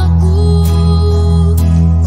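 Music: an instrumental passage of a slow Indonesian pop ballad, with a steady bass line, plucked guitar and a single held note in the middle.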